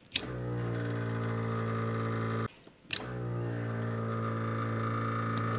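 Electric air compressor of a Demco Stay-IN-Play DUO supplemental braking system running with a steady hum. It starts with a click, breaks off briefly about two and a half seconds in, then clicks on again and runs on. This is the unit pressurizing its air cylinder to push the brake pedal, as in a breakaway-switch test.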